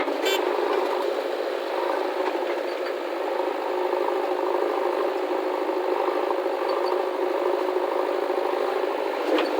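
Heavy diesel machinery running steadily with a rattle, its engine sound thin, with no deep bass. A sharp click at the start and another near the end.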